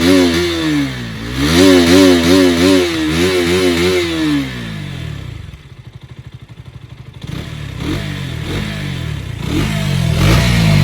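KTM RC 200 BS6's single-cylinder engine revved hard while stationary, its pitch wavering quickly up and down as the throttle is worked high in the rev range. It drops back to a quiet low idle around the middle, then revs up again near the end.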